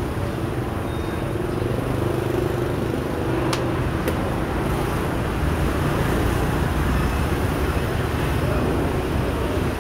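Steady low background rumble, with two sharp clicks a little past the middle: a xiangqi piece set down on the wooden board, then the chess clock's button pressed.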